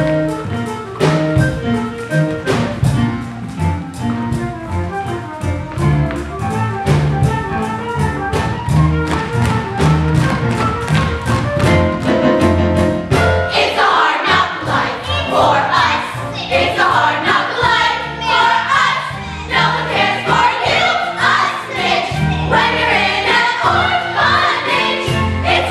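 Musical-theatre orchestra playing a number with a steady beat; about halfway through, a chorus of voices comes in singing.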